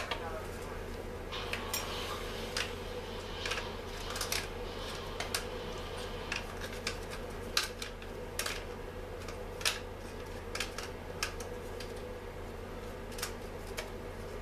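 Irregular sharp clicks and light clinks, roughly one a second, of the plastic starter (recoil) housing of a Stihl MS 250 chainsaw being handled and worked on, over a steady low hum.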